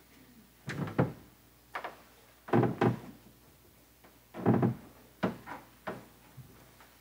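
A run of knocks and thuds from a man handling things at a wooden pulpit, stepping away and sitting down on a wooden church pew, with the loudest thud at the sit-down about halfway through.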